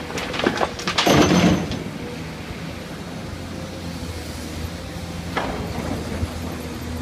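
Excavator's diesel engine running steadily at work, with a loud rattling clatter about a second in and a shorter one past the middle, as the machine handles soil.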